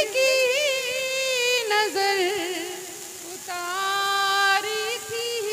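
A woman singing a line of an Urdu ghazal in tarannum, the sung style of recitation, into a stage microphone. She draws the words out in several long held notes with wavering pitch, with short breaks between phrases.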